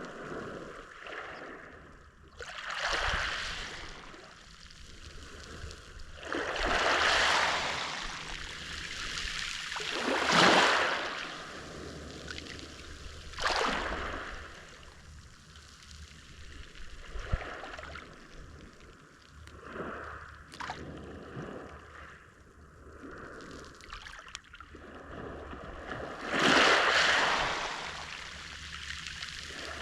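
Small Mediterranean Sea waves washing onto the shore: about six swells of surf a few seconds apart, the loudest about ten seconds in and near the end, with quieter lapping water between.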